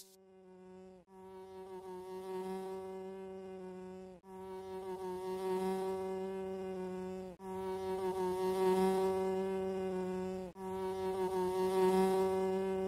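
A fly buzzing in a steady drone that swells louder over the first couple of seconds, with brief breaks about every three seconds.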